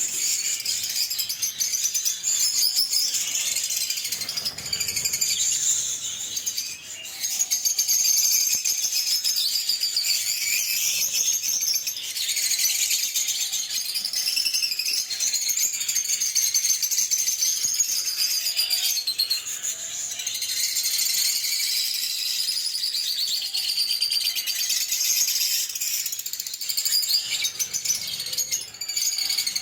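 A group of lovebirds chattering nonstop, many high-pitched chirps and trills overlapping into a continuous twittering din.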